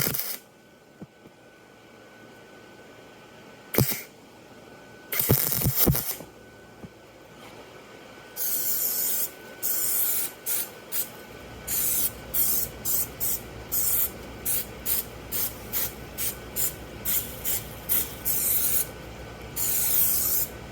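Aerosol can of welding anti-spatter spray hissing, first in one spray and then in a run of short puffs at about two a second, ending with a longer spray. A few knocks come first, and a low steady hum starts about halfway through.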